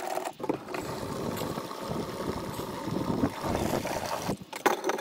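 Petrol being poured from a plastic jerry can through its spout into a plastic Suzuki outboard fuel tank. It is a steady pour that starts just under a second in and stops shortly before the end.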